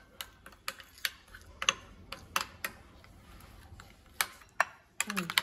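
Metal spoon clinking against a ceramic plate while ground spices are stirred into yogurt: irregular sharp clicks, a few a second, coming faster near the end.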